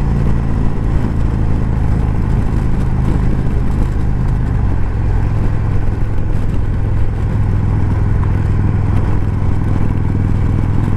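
Indian Chieftain's V-twin engine running under way at highway speed, with steady wind rush; the engine note drops a little about four and a half seconds in.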